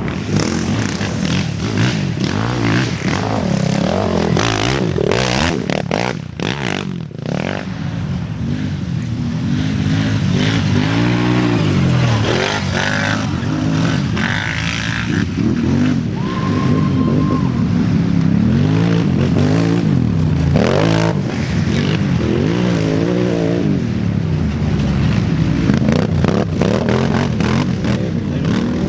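Racing quad (ATV) engines revving hard and dropping off, pitch rising and falling with the throttle, as the quads ride one after another through rutted sand and dirt.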